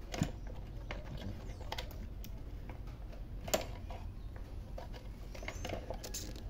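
Small plastic clicks and taps as hands work a new fuel filter into the plastic housing of a 2007 Toyota Yaris fuel pump module, trying to hook it in place. The sharper clicks come just after the start, about halfway and near the end.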